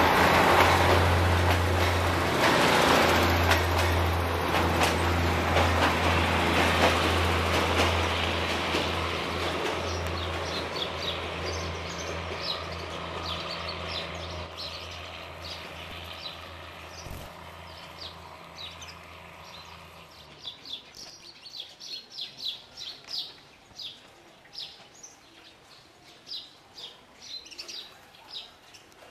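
A State Railway of Thailand diesel railcar train pulling away: a steady engine drone and rolling noise, loudest at the start and fading as it recedes, the engine hum dropping out about two-thirds of the way in. Small birds chirp repeatedly through the second half.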